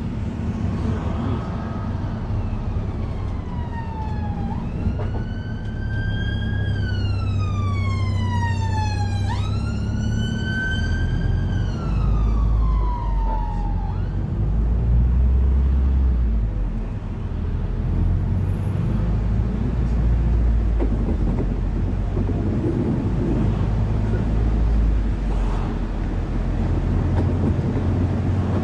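Emergency-vehicle siren wailing in slow falling and rising sweeps, then fading out about halfway through, over the steady low rumble of a bus's drivetrain and road noise.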